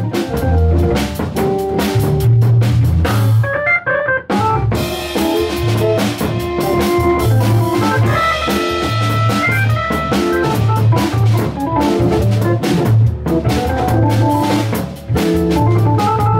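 Live jazz combo playing: Hammond organ over a drum kit, with an archtop electric guitar.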